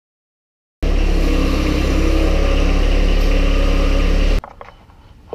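John Deere compact tractor's diesel engine running close by, loud and steady; it comes in abruptly about a second in and cuts off suddenly after about three and a half seconds. Faint knocks and rubbing follow.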